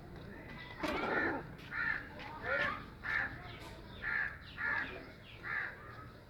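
A run of short, harsh animal calls, roughly one every half to three-quarters of a second, with one longer, fuller call about a second in.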